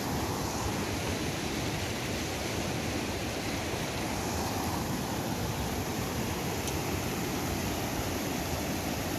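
Steady rushing of a small mountain river.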